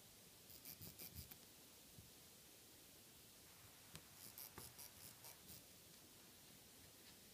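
Tailor's chalk pencil scratching on fabric as a marking line is drawn: two runs of about half a dozen short, faint strokes, a few seconds apart, the second starting with a light tick.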